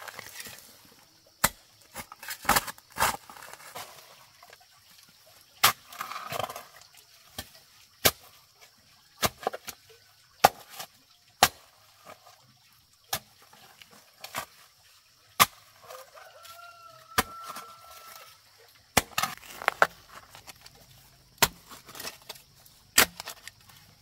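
Sharp knocks, sounding irregularly about once a second, with chickens clucking and a held call, likely a rooster crowing, a little past the middle.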